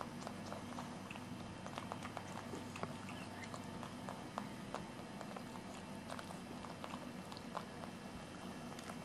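A pug chewing gum: faint, irregular wet smacks and clicks of its jaws and mouth.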